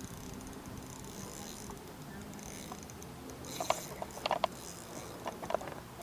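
Faint steady low hum under a light hiss, with a scattered run of short, sharp clicks and ticks starting a little past halfway.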